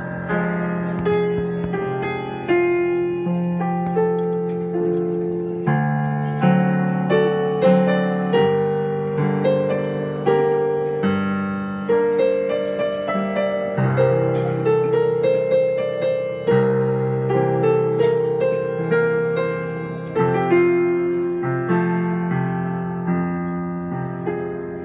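Solo piano playing the introduction to a Neapolitan song: a flowing run of melody over struck chords, each note fading after it sounds, leading up to the singer's entry.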